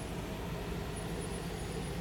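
Steady low mechanical rumble with an even hum, level throughout.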